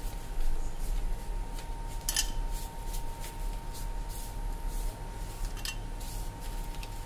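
Hard pieces of dried turmeric dropping into a stainless-steel mixer-grinder jar, a few scattered clicks and clinks, the loudest about two seconds in, over a faint steady tone.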